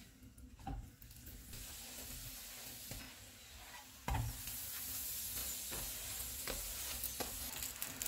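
Ghee sizzling on a hot tawa under a frying keema paratha, getting louder about halfway through as the paratha is turned over, with a few light knocks of handling in between.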